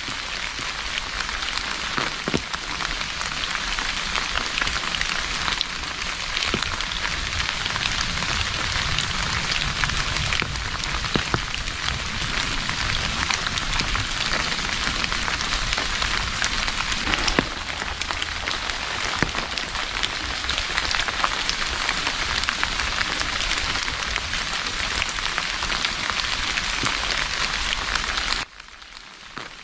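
Steady rain falling onto open water, a dense hiss with many separate drop ticks. It drops suddenly to a quieter level near the end.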